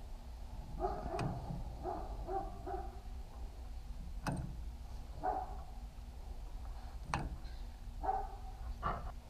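A dog barking in short bursts, several times, with a few sharp clicks about three seconds apart.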